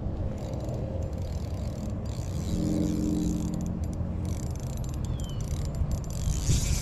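Fishing reel being cranked to reel in a hooked fish, a mechanical whirring of gears, over a steady low rumble.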